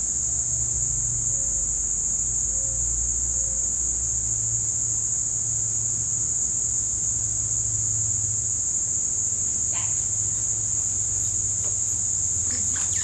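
Steady high-pitched chorus of insects, unbroken throughout, with a few faint ticks near the end.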